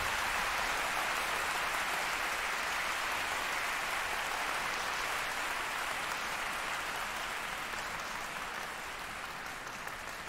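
Concert hall audience applauding steadily, the clapping slowly dying away near the end.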